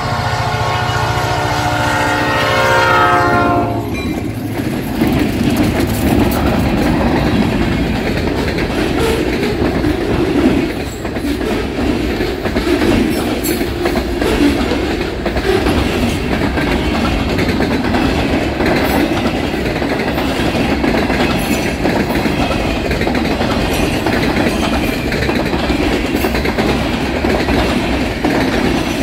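Diesel freight train at a grade crossing: the locomotive's horn sounds over the engine's low drone and cuts off about four seconds in. After that comes the steady rumble and rhythmic clickety-clack of loaded freight cars rolling past on the rails.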